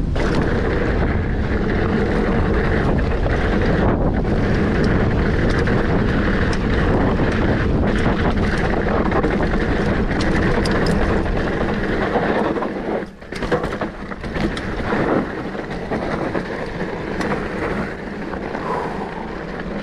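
Wind rushing over the camera microphone during a fast mountain bike descent, with the Specialized Fuse hardtail's tyres rumbling over the dirt trail and scattered clicks and rattles from the bike. The rush drops noticeably about two-thirds of the way through as the bike slows.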